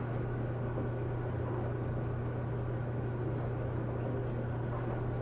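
Steady low background hum with a faint even hiss, and one faint click about four seconds in.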